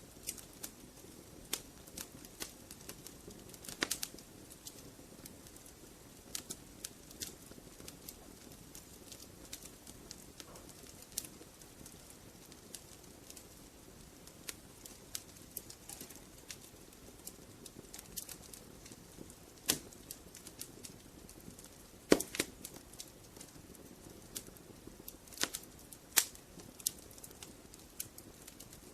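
Wood fire burning in a fireplace: a soft steady rumble of flames with irregular sharp crackles and pops from the logs, a few louder pops scattered through.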